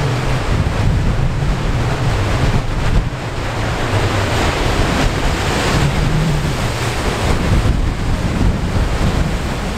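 Ocean surf breaking and washing over rocks, a steady loud churn of waves, with wind buffeting the microphone as a low rumble.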